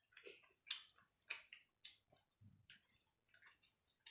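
Wet eating noises: quiet, irregular smacks and clicks of someone chewing a mouthful of rice and curry, about a dozen in a few seconds.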